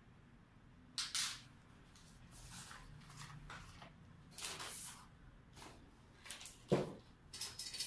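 Hands handling objects on a workbench: a string of short rustles and light knocks, with a sharper knock near the end followed by a few quick clicks.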